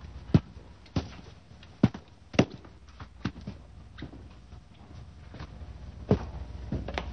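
Footsteps of hard-soled shoes on a hard floor: a string of sharp, short steps at uneven intervals.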